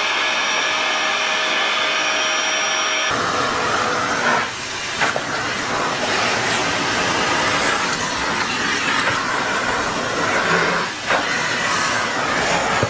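Vacuum cleaner running steadily with a high motor whine, its nozzle being worked over a cat's fur. About three seconds in the sound switches abruptly to a second vacuum with a rougher, hissier rush that dips briefly twice.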